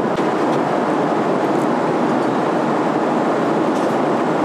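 Steady cabin noise of a Boeing 777 airliner in cruise, the even rush of airflow and engines heard inside the cabin, with a few faint clicks.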